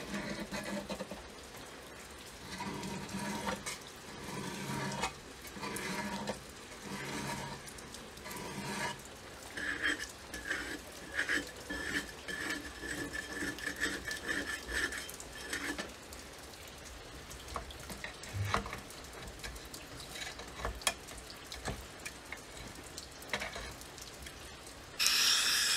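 Metal being worked by hand: slow scraping strokes about one a second, then faster, shorter strokes with a ringing edge, then scattered light clicks and taps. A loud steady hiss starts just before the end.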